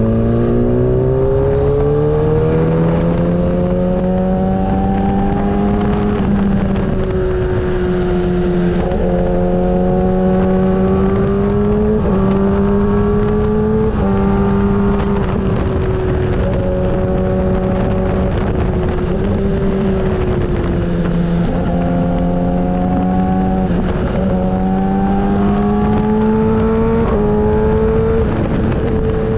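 Motorcycle engine under way: its pitch climbs as it pulls, then drops or jumps at a gear change about every two to four seconds, over a steady low rush of wind.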